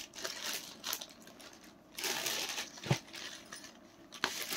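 Fabric and a crinkly white packing sheet rustling as a folded suit is opened out by hand, in short, uneven bursts, with one soft bump about three seconds in.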